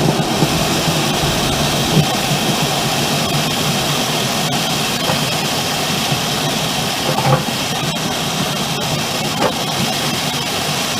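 Grain-handling machinery running steadily as it conveys harvested barley up into storage: a loud, even mechanical hiss with a few short knocks.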